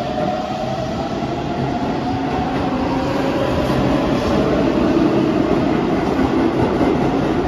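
Keihan electric commuter train accelerating along an underground station platform: the motor whine rises slowly in pitch over wheel and rail noise, which grows louder as the cars pass.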